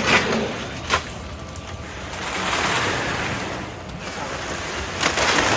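Wet concrete sliding and pouring, a rushing wash that swells in the middle, with a sharp knock about a second in and a low engine hum running underneath.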